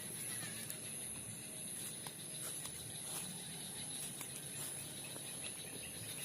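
Outdoor ambience dominated by a steady, high-pitched insect drone, with a few faint scattered clicks.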